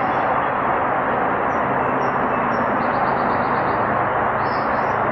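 Steady hiss of static from a spirit-box app's noise sweep.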